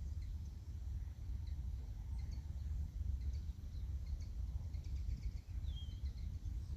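Wind buffeting the microphone as a steady low rumble, with small birds chirping faintly now and then and one short falling call near the end.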